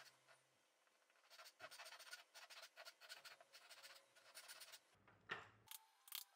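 Japanese-style pull saw cutting across a round wooden rod by hand, a run of quick rasping strokes after a short pause. Near the end comes a brief, louder swish.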